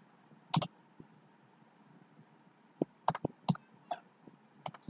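Computer keyboard keystrokes: a single key click about half a second in, then a quick run of several clicks from about three seconds in.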